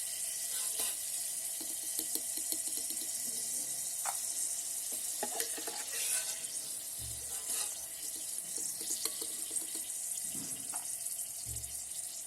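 Battered sweet corn kernels deep-frying in hot oil in an electric kettle: a steady high sizzle with scattered crackles as moisture in the corn spatters. Two short dull low bumps come about seven and eleven seconds in.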